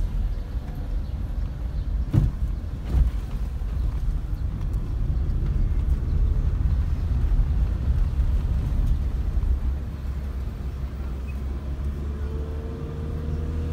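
Steady low rumble of engine and road noise heard inside a car moving slowly in city traffic, with two sharp knocks about two and three seconds in and a faint whine rising slightly near the end.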